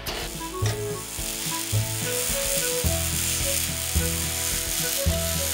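Electric arc welding: the steady crackling hiss of the welding arc as a bead is laid on steel, under background music with a stepping bass line and held melody notes.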